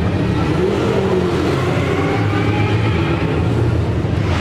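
Supercars V8 race car engine running at low revs as the car rolls slowly past at close range, a steady low note.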